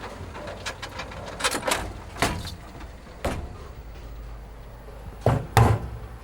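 A series of irregular knocks and clatters over a low steady background, the two loudest close together near the end.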